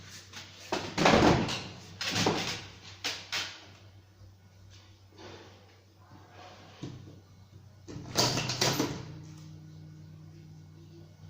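Tobacco rolling machine being worked by hand: a run of short sliding, clacking strokes, three in quick succession about a second apart, then another cluster near the end, over a low steady hum.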